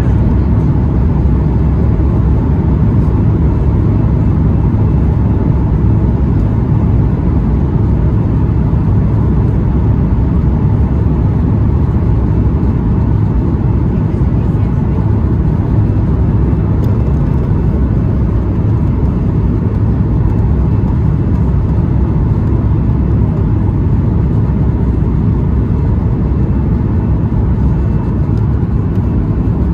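Steady cabin noise inside a Boeing 737-8 MAX airliner in flight on the approach to landing: an even, loud, low rumble of engines and airflow that holds level throughout.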